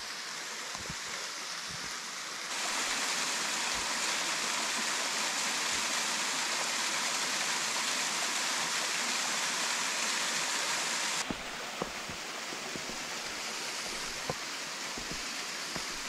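Steady rush of water from a 65-foot waterfall spilling down a layered rock face, running below full flow. The rush gets louder about two and a half seconds in and drops back about eleven seconds in, with a few light knocks near the end.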